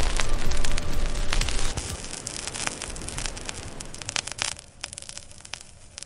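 A loud low rumble with hiss that drops away after about a second and a half, giving way to a quieter hiss full of scattered crackles and clicks, like record-surface crackle.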